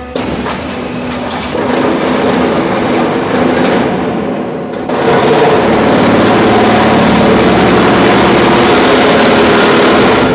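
RHP 400 concrete block machine running its two-layer moulding cycle: a loud, rapid mechanical rattle and vibration as the mould is filled and the concrete compacted. It steps up to a louder, steady vibration about five seconds in.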